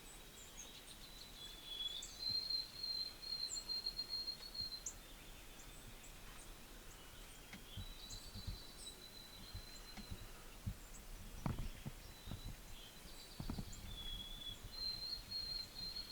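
Songbirds singing: a high trill lasting about two seconds, repeated several times, with short high chirps from other birds in between. A few low thumps come about two-thirds of the way through.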